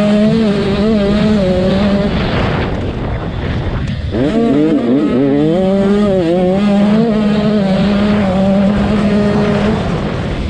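An 85cc two-stroke motocross bike's engine running at high revs under hard throttle. About three seconds in the revs drop off briefly, then climb back up in quick rising surges and hold high again.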